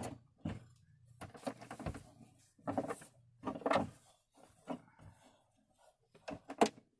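A domestic sewing machine stops right at the start. After that come short, irregular rustles and light knocks as cotton patchwork fabric is handled and shifted at the machine between seams.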